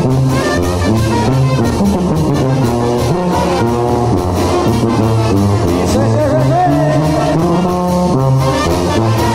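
Live brass band playing dance music, a sousaphone carrying a bass line that steps from note to note under the higher brass.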